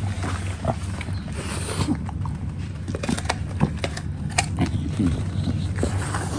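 English bulldog chewing and crunching apple, with irregular crunches and smacks of its jaws, over a steady low hum.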